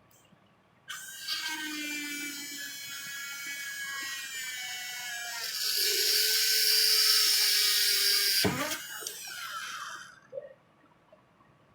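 Electric drill running. It starts suddenly about a second in with a steady high whine, gets louder about halfway through, then is switched off near the end and winds down over about a second.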